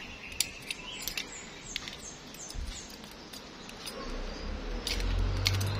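Light clicks and rattles from the metal fittings and spray gun of a coiled air-compressor hose being handled, with a few short, high falling bird chirps in the background. A low rumble builds near the end.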